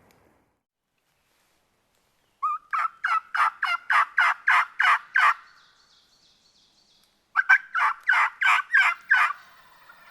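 Turkey calling in two runs of evenly spaced notes, about three or four a second: about ten notes a couple of seconds in, a pause, then about seven more.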